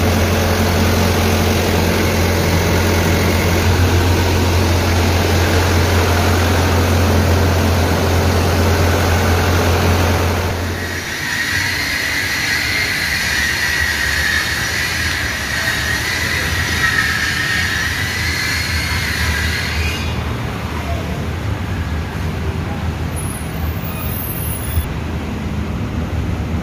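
Car engine idling with a steady low hum. About ten seconds in the hum drops away and a wavering high whine comes in, stopping abruptly about twenty seconds in.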